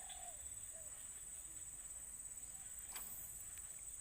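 Steady high-pitched insect drone, with a few faint dove coos and one sharp click about three seconds in.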